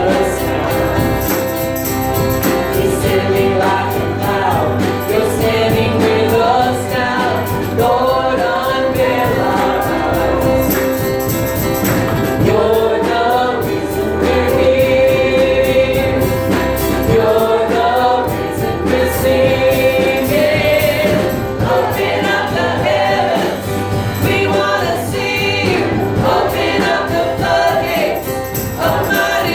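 Church worship music: a group of voices singing a song together over steady band accompaniment, with no pauses.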